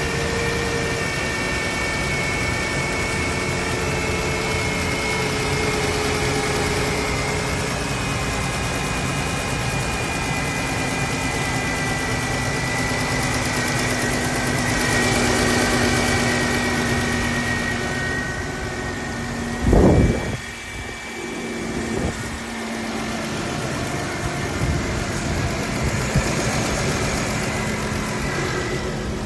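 Chrysler Town & Country minivan engine idling steadily, with thin whining tones over the running noise: the engine noise the owner takes for abnormal. A single loud thump about two-thirds of the way through.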